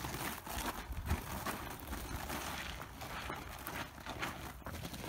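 Shuffling, crunching footsteps of several people walking on a dirt and gravel path, over a low rumble of wind on the microphone.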